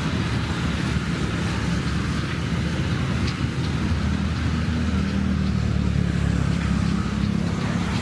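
Road traffic: cars and motorbikes running along the street, a steady engine drone whose low hum grows a little stronger about five seconds in.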